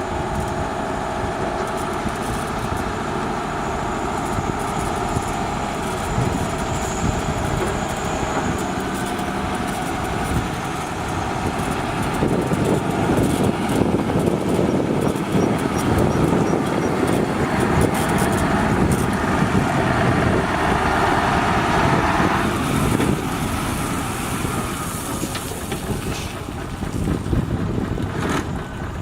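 Heavy diesel construction machinery running at a road-building site, a steady engine drone that grows louder and rougher about twelve seconds in, then eases near the end.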